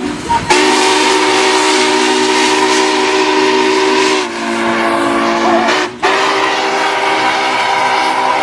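Union Pacific steam locomotive's whistle blowing loud, long blasts of several notes sounding together. The first blast thins to a lower sound about four seconds in and breaks off briefly near six seconds, then a second long blast follows.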